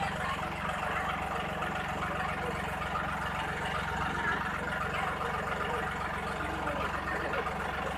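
John Deere 5310 tractor's three-cylinder diesel engine running steadily at low revs as the tractor creeps down a pair of steel ramps.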